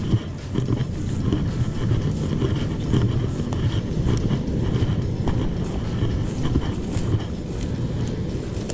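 Wind buffeting the camera microphone: a steady, loud low rumble.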